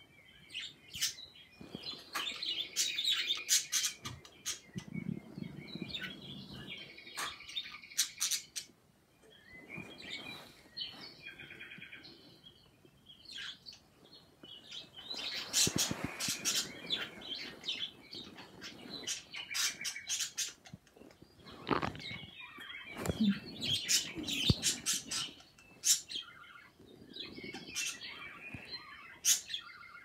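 Pet budgerigars chirping and chattering in bursts, broken by sharp clicks.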